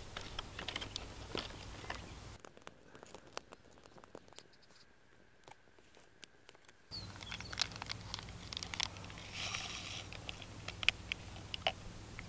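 A small campfire of dry twigs and brushwood crackling, with irregular sharp snaps and pops as sticks are handled and laid on the fire.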